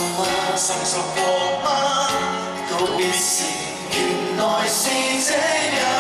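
Live pop music from a band on stage, with a male voice singing over it.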